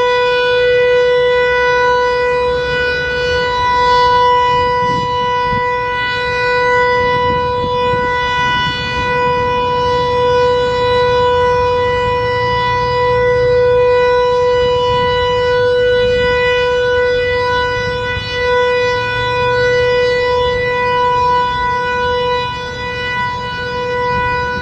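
American Signal Tempest T-121 omnidirectional eight-port mechanical siren sounding its steady alert tone. It holds one pitch throughout, with the loudness wavering only slightly.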